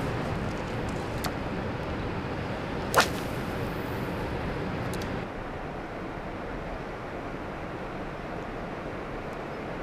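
A light spinning rod being cast: one sharp swish about three seconds in, then a short hiss of line running off the reel, over steady outdoor wind noise.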